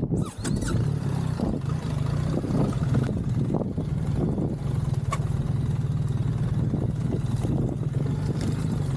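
Motorcycle engine running at a steady pitch, with a few sharp clicks over it.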